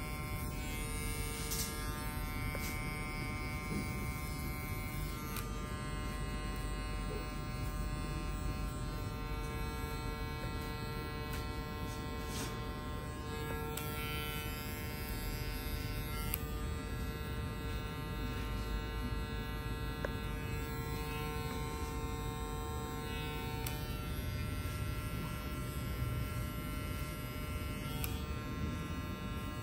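Electric hair clippers running with a steady buzz while cutting a fade.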